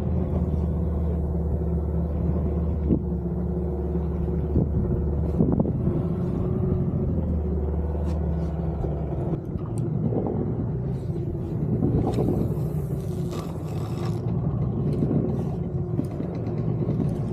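Small fishing boat's engine running steadily under way, with water washing along the hull. About nine seconds in, the engine's deepest note drops away while the higher engine tones carry on.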